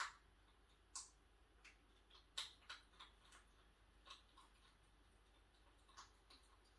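Hedgehog eating cat food from a bowl: faint, irregular crunching clicks, about a dozen, bunched in the first half and sparser later.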